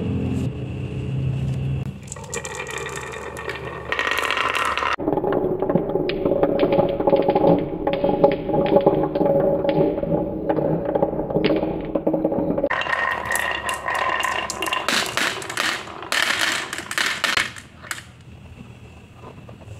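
Glass marbles rolling and clattering down a wooden marble run, knocking against wooden pegs and each other in a fast, irregular run of clicks. Near the end the clatter thins out as the marbles come to rest.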